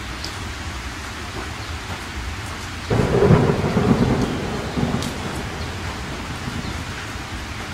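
Thunderstorm sound: steady rain, with a sudden clap of thunder about three seconds in that rumbles and fades over the next two seconds.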